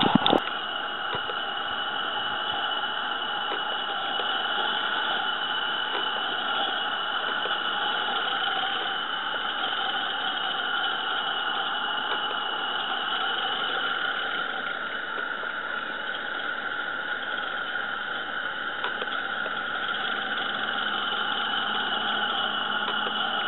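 Steady hiss of steam from a 16mm-scale live-steam model locomotive standing still against a snowdrift. It carries a few fixed whistling tones and stays unchanged throughout.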